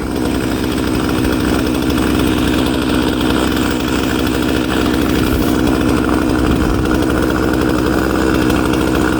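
Two-stroke chainsaw running steadily as its freshly sharpened chain cuts through wood.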